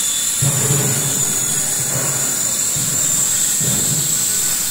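EPE foam and aluminium foil laminating machine running: a steady, loud hiss with a constant high-pitched whine, and a few irregular low rumbles.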